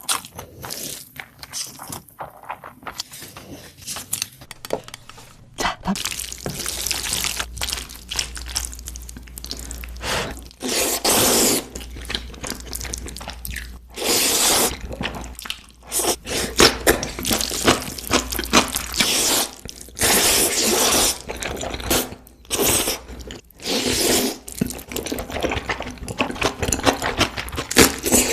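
Close-miked eating sounds: repeated wet slurps and chewing, with sharp crunches and clicks scattered throughout.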